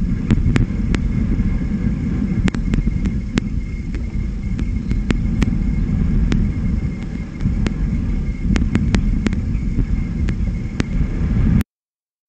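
Wind buffeting an outdoor nest-cam microphone: a loud, uneven low rumble with many sharp clicks scattered through it. It cuts off suddenly near the end.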